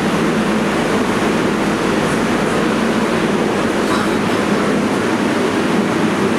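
Steady hum and rush of an R142A subway train standing at the platform with its doors open, its onboard equipment running.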